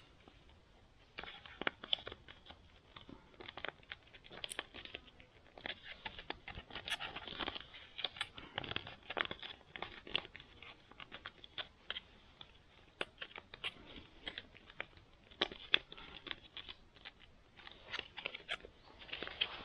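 Crinkling, rustling and tearing of a plastic ready-meal pouch being handled and opened: a run of small irregular crackles.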